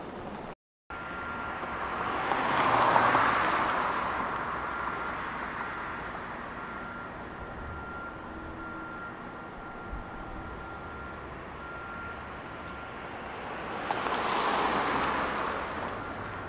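Road traffic: two vehicles pass by, each swelling and fading away, one about three seconds in and one near the end, over a steady traffic hum with a faint steady whine. A brief dropout to silence comes just after the start.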